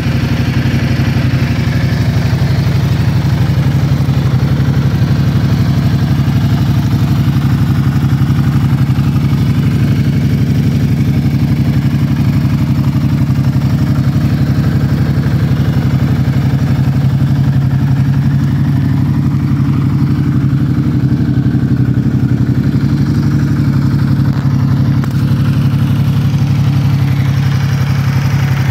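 Ducati Multistrada 1260 Enduro's 1262 cc Testastretta V-twin engine idling steadily.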